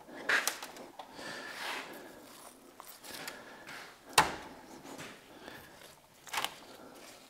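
Gloved fingers scraping and picking at crusty rust sludge packed in the base of a 50-ton hydraulic bottle jack, around its cylinder. It is a faint scratchy rustle with scattered small clicks and one sharper knock about four seconds in. This crud is what kept the jack from working.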